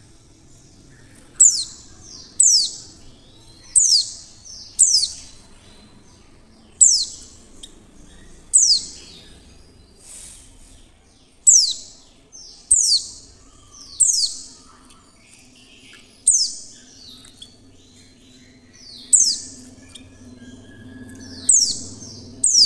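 Female white-eye (pleci) calling: a string of short, sharp, very high notes, each sliding quickly down in pitch, repeated irregularly every second or two. These are the calls used to lure other white-eyes into singing.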